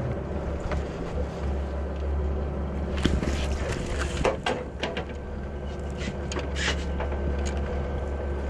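Harpoon boat's engine running low and steady. A sharp splash and knock come about three seconds in, with a few more knocks and clatters after, as a harpoon is darted into a giant bluefin tuna at the bow.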